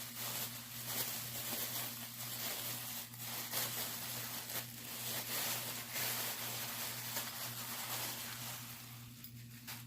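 Faint handling noise of old metal padlocks being set down and picked up: light knocks and rustles over a steady low electrical hum.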